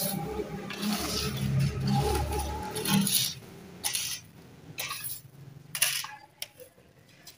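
Grass broom (jhaadu) swishing across a stone-tiled floor, sweeping dust and debris into a hand-held dustpan, with clinks and scrapes of the dustpan on the tiles. A low hum runs under the busier first few seconds, and the strokes thin out after that.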